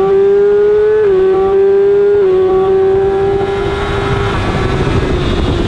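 Inline-four sport bike engine at high revs under hard acceleration, heard on board. Its whine climbs steadily, with two sharp drops in pitch about one and two seconds in, as with quick upshifts. About four seconds in the engine note fades as the throttle closes, and wind rush takes over.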